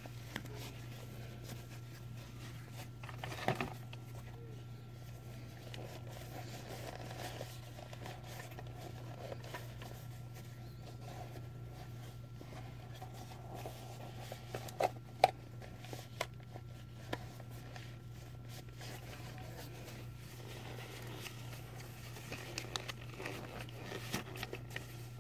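Faint handling sounds of a camera being packed back into its box: scattered clicks and knocks with some rustling of packaging, a little louder about 3.5 and 15 seconds in, over a steady low hum.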